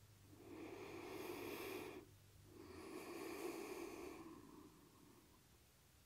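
A woman's slow, deep breathing while she holds a yoga stretch. There are two long, faint breaths, each about two seconds, with a short gap between them.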